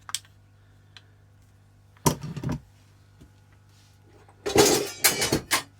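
Hand tools being handled and put down on a hard surface: a couple of light clicks, a short clatter about two seconds in, then a louder run of knocks and rattles near the end.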